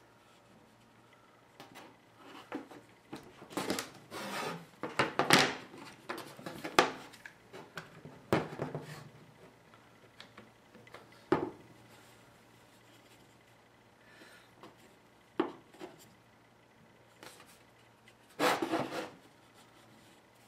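Irwin Quick-Grip bar clamps being set and tightened on a glued-up pine assembly: irregular clicks and knocks from the clamps, with the wood scraping and sliding on the workbench. The handling is busiest in the first half, followed by a few single knocks and one more short scraping rattle near the end.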